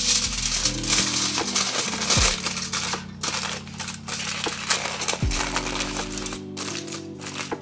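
Aluminium foil being crinkled and folded by hand as it is wrapped around a bagel sandwich, over soft background music; the crinkling eases off about five seconds in.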